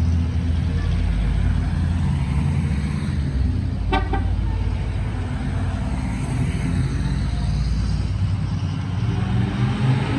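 Vintage cars driving past one after another at low speed, their engines running steadily. A short horn toot sounds about four seconds in.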